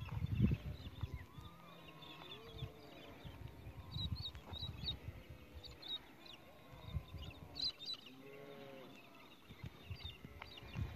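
Sheep bleating now and then, with birds chirping in short bursts and a low, gusty rumble of wind on the microphone.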